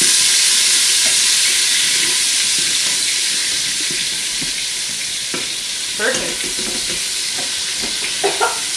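Minced garlic sizzling in the Instant Pot's inner pot on the sauté setting, stirred with a wooden spoon; the steady sizzle eases off gradually. A couple of brief voice sounds come in about six seconds in and near the end.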